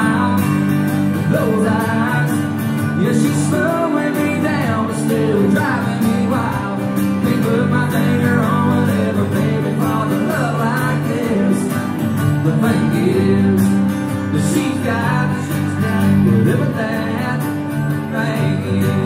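Live acoustic music: two acoustic guitars strummed and picked with a singing voice over them, amplified through a club PA.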